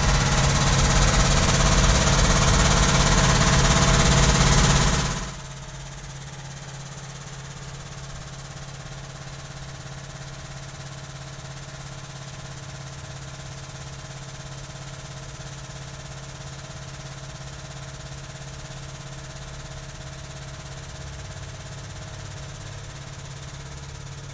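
Outdoor unit of an LG split air conditioner running with a steady low hum. For the first five seconds a much louder rushing noise sits over it, then cuts off suddenly.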